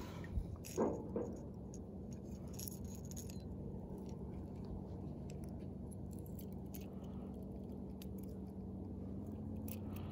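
Close handling noise: small clicks and light rattles as fingers pick weed off a crankbait's hooks, with a few sharper knocks in the first second. A steady low hum runs underneath.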